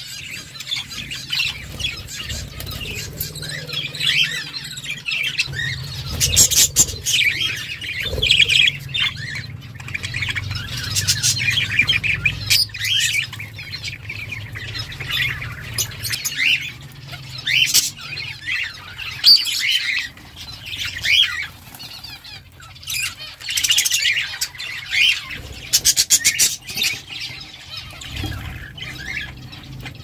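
A flock of budgerigars chattering and warbling: a dense, unbroken run of short high chirps and squawks, with occasional sharp clicks.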